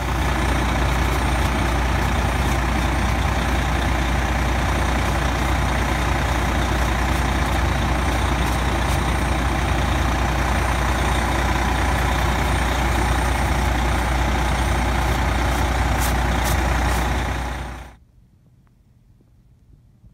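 A heavy engine running steadily under a loud, even hiss, stopping suddenly near the end.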